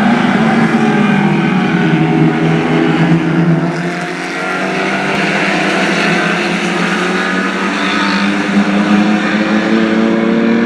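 Lightning Rod stock cars' engines running in a race, a continuous engine note. It eases off about four seconds in, then climbs steadily in pitch as the cars accelerate.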